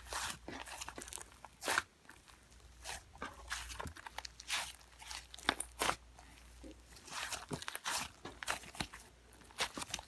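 Soft clay slime being squeezed and pressed by hand, giving off irregular crackling, clicking pops several times a second.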